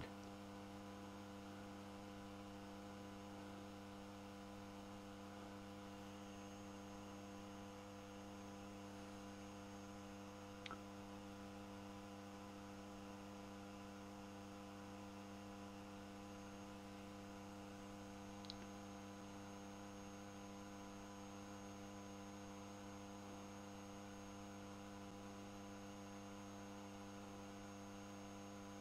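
Faint steady electrical hum, low and buzzy, with two tiny ticks about ten and eighteen seconds in.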